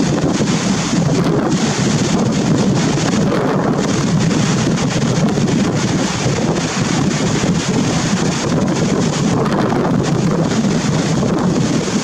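Wind buffeting the microphone, a loud steady noise, over the wash of rough surf.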